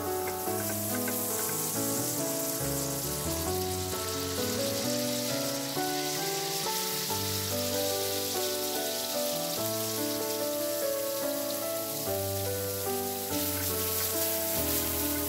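Butter sizzling in a frying pan, then diced carrot and onion frying in the butter as they are stirred, with background music playing.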